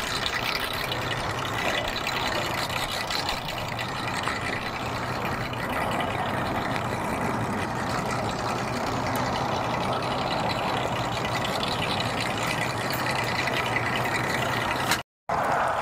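A 225 hp Evinrude outboard motor on a bay boat running steadily at idle as the boat is eased in to a dock. The steady low hum sits under a continuous hiss, and the sound cuts out completely for a moment near the end.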